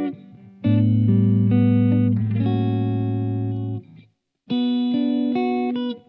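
Electric guitar with humbucking pickups, the Soloking MT-1 Custom 22, played through an amplifier: ringing chords and held notes. The playing drops away just after the start, comes back, stops briefly about four seconds in, then resumes.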